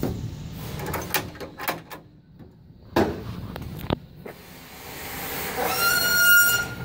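Knocks and clanks of a hand handling a truck's metal drop-side panel and latch, with one sharp bang about three seconds in. Near the end, a rising rush of noise with a high steady tone.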